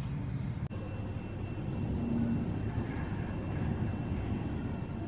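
Steady low background rumble, with a brief dropout just under a second in.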